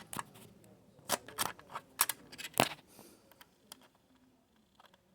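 Sharp clicks and taps of small metal parts being handled as a computer optical drive is screwed back into place, about five clicks in the first three seconds, then only faint ticks.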